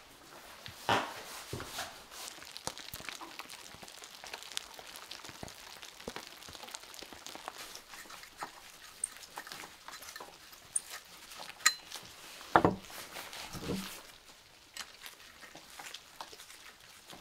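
Scattered clicks and light knocks of a metal stovepipe wall bracket, a clamp ring and threaded rods, being handled and screwed together on wooden boards. A sharp, briefly ringing metal clink comes about two-thirds of the way through, followed by two duller knocks.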